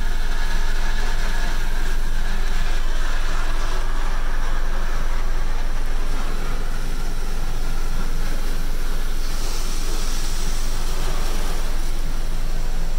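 Automatic car wash jets spraying water over the car, heard from inside the cabin as a steady rushing hiss. A brighter, hissier spray joins about nine seconds in.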